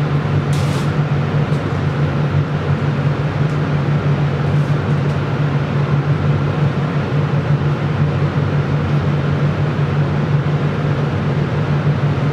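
Steady whirring hum of a biological safety cabinet's blower fan, even throughout, with a few faint clicks of labware.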